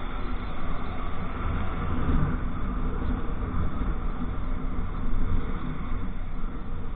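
Steady road noise from a motorcycle on the move: wind rushing over the microphone, with the motorcycle's engine running underneath.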